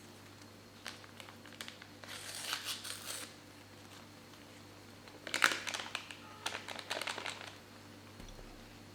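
Something crinkly being handled in two spells of close crackling, the second, about five seconds in, louder than the first.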